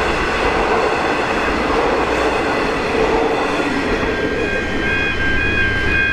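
A V/Line passenger train rolling through a level crossing, its wheels rumbling and hissing on the rails. About four seconds in, the train noise thins as it clears, and the crossing's warning bell ringing in a steady repeating pattern comes through.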